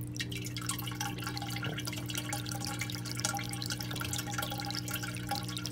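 Water splashing and dripping as a pump outlet fills an aquaponics grow tray, with many small irregular drips over a steady low hum. The tray is still filling and the bell siphon has not yet started.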